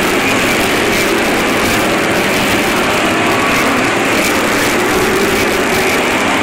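A pack of stock car engines running hard as the cars race past on a short oval, a loud, steady, dense din.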